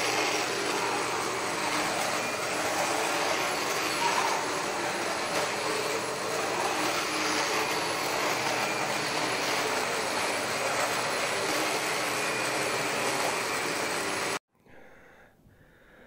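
Vacuum cleaner running steadily, with a faint high whine over its rushing noise, then cutting off suddenly near the end.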